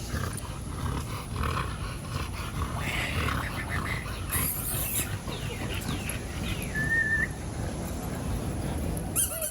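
Dogs close by, a rough noisy sound of their breathing and movement throughout, with one short high tone about seven seconds in.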